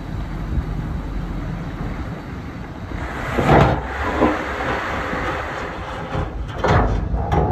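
Dongfeng dump truck's engine running under a raised bed as its load of dirt and rocks slides out over the tailgate, with two louder rushes of tumbling rock, about three and a half seconds in and again near the end.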